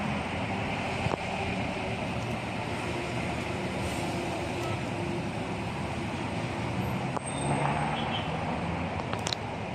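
Steady drone of road traffic, with the low hum of vehicle engines.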